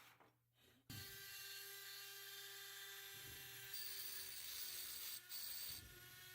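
A small electric power tool starts suddenly about a second in and runs steadily with a high, even whine, rubbing against a surface.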